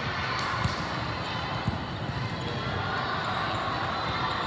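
Din of a large hall full of volleyball courts: a steady murmur of voices with scattered thumps of volleyballs being hit and bouncing on the floor, the sharpest one a little under two seconds in.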